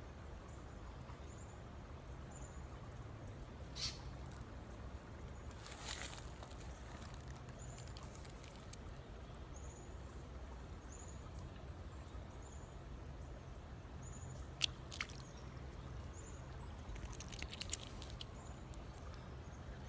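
Quiet creekside outdoor ambience: a faint high chirp repeating about once a second over a low steady rumble. A few sharp clicks and short rustles come from handling the fishing rod and reel, the loudest near the end.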